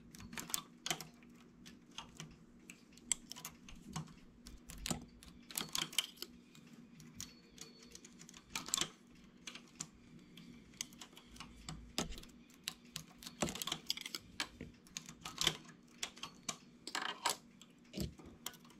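Irregular light clicks and taps of a single-prong transfer tool and metal latch needles on a knitting machine's needle bed, as stitches are lifted and moved one by one to cross cables. A faint steady hum sits underneath.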